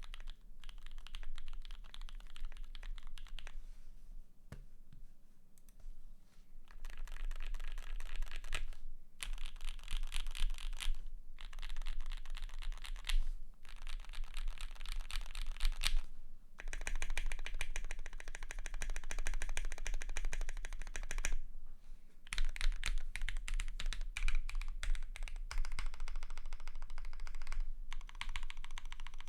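Fast typing on a custom 60% mechanical keyboard with lubed linear Gateron PRO Yellow switches, PBT keycaps and a polycarbonate plate: quick runs of key clacks in bursts of a few seconds, broken by short pauses.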